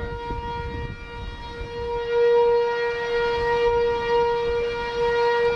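Outdoor tornado warning siren sounding one steady tone, swelling louder about two seconds in, with wind rumbling on the microphone.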